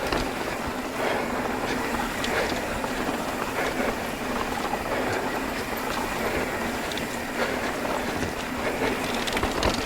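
Mountain bike rolling over a rocky trail, with a steady rattle and tyre noise, under the rider's heavy breathing close to the microphone.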